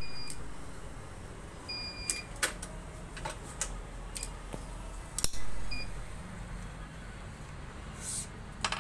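Wilson electronic racket-stringing machine beeping three times, once longer at about two seconds, as its tension head pulls the string, amid sharp clicks and knocks of the clamps and tensioner being worked.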